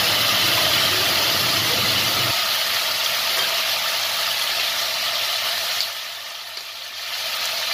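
Pork spare ribs and kimchi frying in a stainless steel pot: a steady sizzle, easing a little about six seconds in before picking up again.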